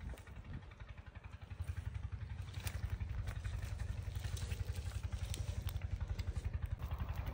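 An engine running steadily with a low, rapid chugging that grows louder after about two seconds, with a few light clicks over it.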